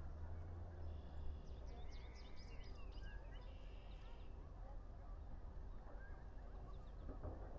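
A quick burst of high-pitched bird chirps and whistled calls about two seconds in, over a steady low background rumble.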